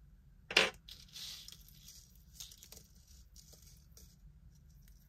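A sharp tap about half a second in, then a brief faint crinkly rustle and a few light clicks: small jewelry pieces and their packaging being handled.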